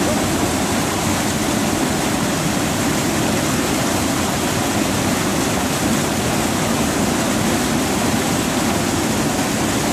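Water spilling over a concrete dam weir and crashing into a churning pool below: a steady, unbroken rush of falling water.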